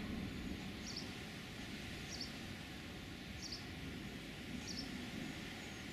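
Steady outdoor hiss as the low rumble of thunder dies away at the start, with a bird giving a short, high chirp about every second and a quarter.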